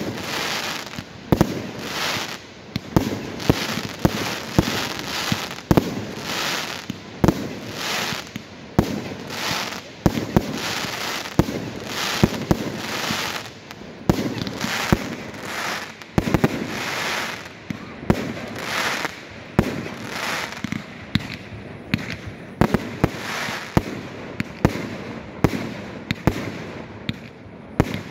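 Aerial firework shells launching and bursting in quick succession. There is a swell of hissing about once a second, with many sharp bangs between.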